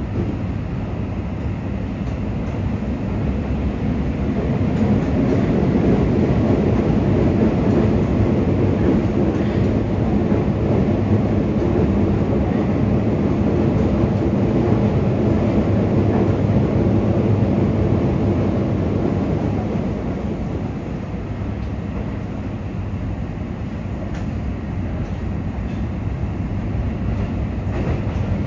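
Yokohama Municipal Subway 4000 series train with Mitsubishi hybrid SiC-VVVF drive running through a tunnel, heard from inside the car: a steady rumble of wheels and running gear. It grows louder about four seconds in and eases off again from about twenty seconds.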